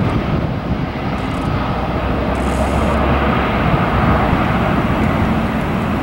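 Boeing 757 airliner's twin jet engines at approach power on short final, a loud, steady jet roar.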